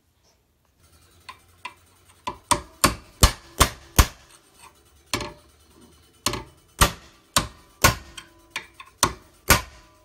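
A hammer striking a steel punch to drive the worn pin out of a Chevy Impala door hinge held in a bench vise. The sharp metal blows come about two a second, starting about two seconds in with a short pause midway, and each one rings briefly.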